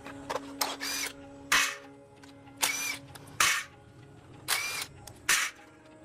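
A hand tool worked back and forth on metal, rasping and scraping in paired strokes about every two seconds, with a faint squeal in some strokes.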